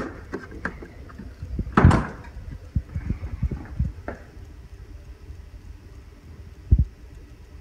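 Refrigerator door shut with a sharp knock about two seconds in, followed by light handling clicks. Near the end there is a dull low knock as a button on the Mr. Coffee coffee maker is pressed.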